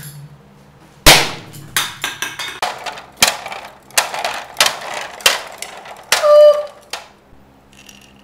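A string of firecrackers going off: about a dozen sharp bangs at irregular spacing starting about a second in, the first the loudest, ending in a longer, louder burst with a short whistle.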